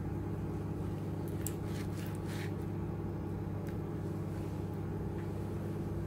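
Steady low hum of a running kitchen appliance, with a few faint scrapes of a dull kitchen knife drawn through raw salmon onto a plastic cutting board during the first few seconds.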